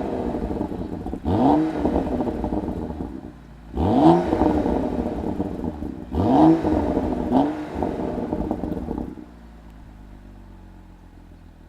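BMW 335i's turbocharged straight-six, with a Remus full exhaust, blipped about five times in quick succession, each rev rising sharply and falling back with crackling on the overrun. About nine seconds in, it settles to a steady, quieter idle.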